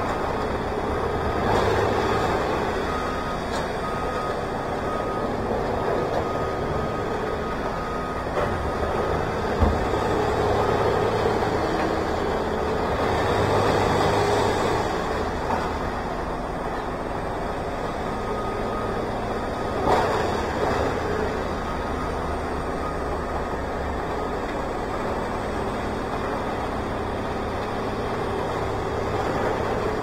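Heavy equipment engine running steadily, with a reversing alarm beeping on and off for long stretches. Two sharp knocks about ten seconds apart.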